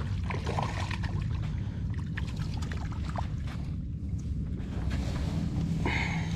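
Steady low wind rumble on the microphone, with scattered light splashes and clicks as a small hooked bass is drawn in through shallow water to the bank.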